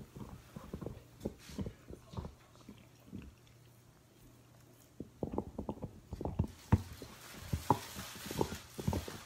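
Golden retriever chewing and licking at a treat stuffed into a blue rubber toy: irregular wet clicks and knocks that go quiet for a couple of seconds in the middle, then pick up again, busier.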